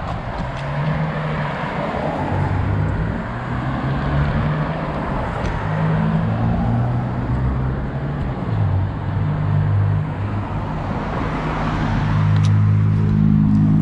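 Cars driving past on a city street: engine hum and tyre noise that shift in pitch as vehicles come and go, loudest about twelve seconds in as a sedan passes close by.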